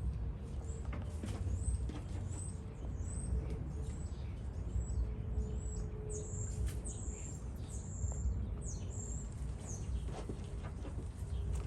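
A bird chirping a run of short, high notes, about two a second, with the notes growing longer after the middle; a low rumble underneath.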